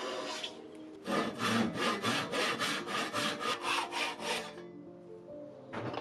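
Hand saw cutting a walnut plank in quick, even strokes, about five a second, for roughly three and a half seconds after a short first stretch of sawing; soft background music underneath.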